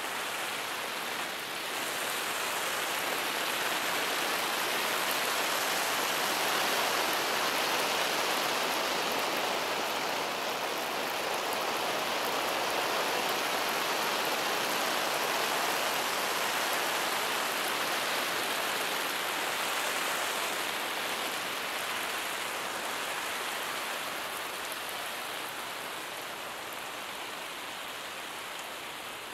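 Lawn sprinkler spraying water, a steady hiss of falling spray that swells gently and then slowly eases off.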